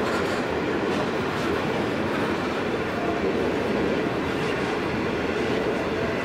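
Steel wheels of a long string of grain hopper wagons on a freight train rolling slowly along the track, a steady rumble and clatter of wheels on rail.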